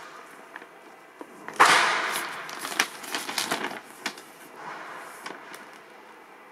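Glossy paper brochure rustling and crinkling as it is handled and its pages turned, with a sudden loud flap about one and a half seconds in, then quick crackles for a couple of seconds that fade to faint rustling.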